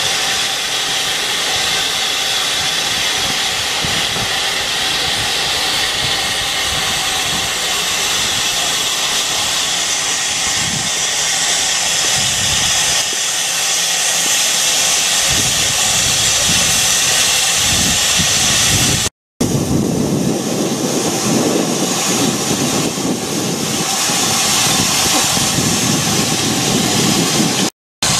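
Steam locomotive LSWR M7 tank engine No. 30053 hissing: a loud, steady hiss of escaping steam. After a short break about two-thirds through, the sound turns fuller and lower.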